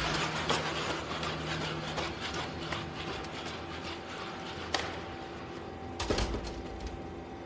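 Boston Dynamics Spot robot dogs walking: a steady mechanical whir from their motors with light tapping from their feet on a hard floor, a sharp click about five seconds in and a heavier knock about a second later.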